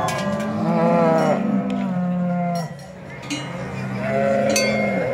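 Brown Swiss cows mooing: long, drawn-out moos from more than one animal, overlapping, then a pause of about a second and another moo near the end. Cowbells clink faintly in the pause and near the end.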